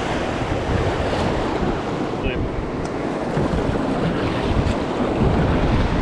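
Rushing whitewater of a river rapid at high spring flow, with wind buffeting the microphone in a steady low rumble.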